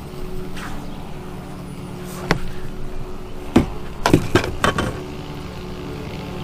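Steady low hum from the bass boat's motor, broken by several sharp knocks and clatters about two to five seconds in.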